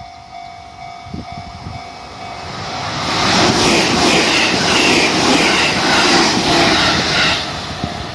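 JR Central 313 series electric train passing over a level crossing with its wheels clattering. The sound builds about two seconds in, stays loud for about four seconds, then drops away near the end. The crossing's warning bell rings as a steady tone under it.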